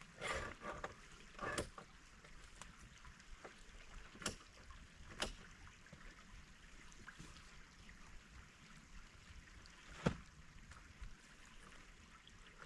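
A stream running in the background, with a few sharp clicks and knocks over it, the loudest about ten seconds in.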